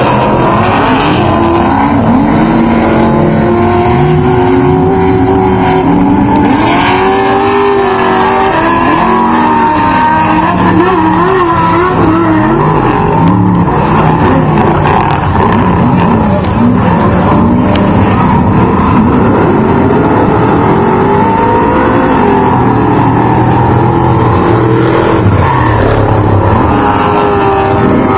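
Off-road race truck and buggy engines running and revving at once, several engines overlapping, their pitch rising and falling.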